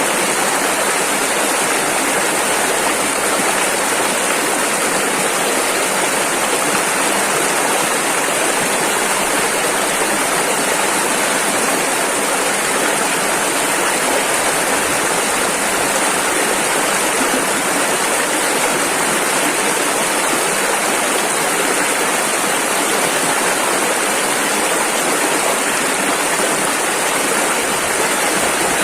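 Rushing river water, a steady loud rush of rapids with no change over time.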